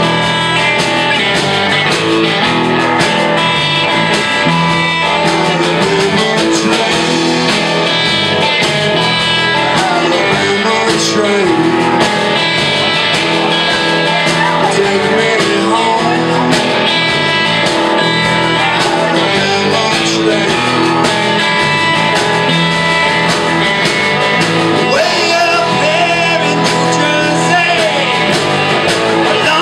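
Live electric blues-rock band playing at full volume: distorted electric guitars, bass guitar and a drum kit keeping a steady beat.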